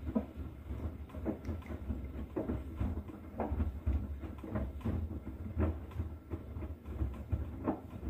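Bosch Serie 6 front-loading washing machine mid-wash, its drum tumbling a wet carpet through sudsy water. The water sloshes and splashes in repeated strokes, about two a second, over a steady low rumble from the drum.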